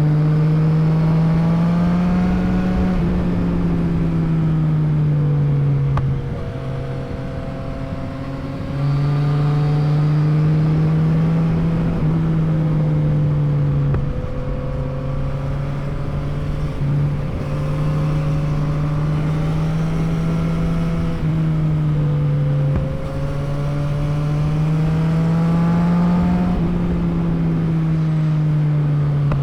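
Yamaha MT-09's three-cylinder engine running on the move, its pitch slowly rising and falling as the throttle is rolled on and off. It eases off to a quieter, lower note for a few seconds about six seconds in, and dips briefly twice more.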